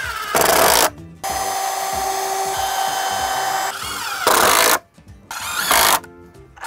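Milwaukee cordless drill and impact driver working on cedar boards, pre-drilling and driving screws. There are three short loud bursts, about a second in, at about four seconds and near the end, with a longer steady run of the motor in between.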